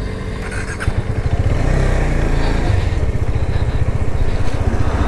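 Motorcycle engine running at idle, a steady low pulsing that grows a little louder about a second in.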